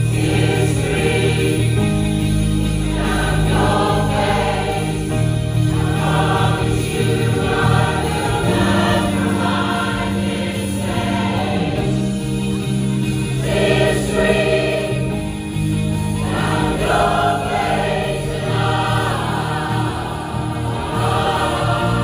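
Choir singing in harmony, with held low accompaniment notes beneath the voices that change every few seconds.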